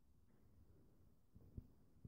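Near silence: room tone, with a faint low thump about one and a half seconds in.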